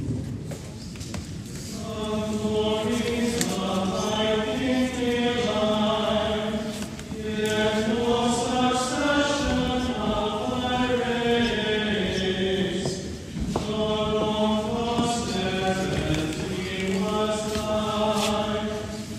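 Singing of a slow chant in long sustained phrases, starting about two seconds in and pausing briefly twice.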